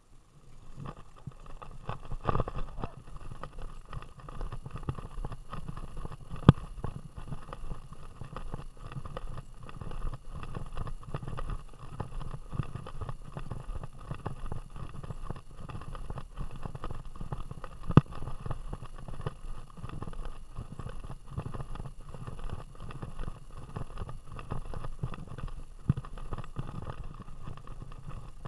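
Rumbling, rattling handling noise from an action camera strapped to a running dog's vest, jostled with every stride, with a few sharp knocks from the mount.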